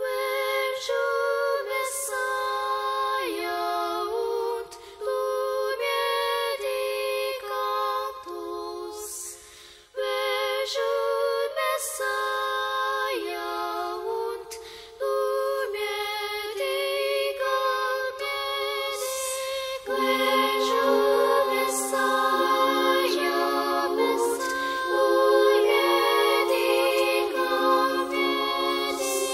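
Music: layered, choir-like wordless singing without bass. A lower part joins and the music grows louder about twenty seconds in.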